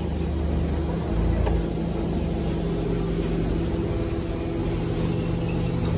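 Propane forklift's engine running steadily under a heavy load on its forks, with a steady high whine over the low hum.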